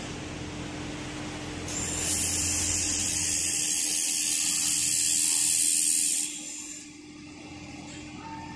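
A 1500 W handheld fiber laser welder firing on a metal joint: a loud, steady, high hiss with spatter begins about two seconds in, holds for about four and a half seconds, and cuts off suddenly. A quieter steady machine hum runs under it.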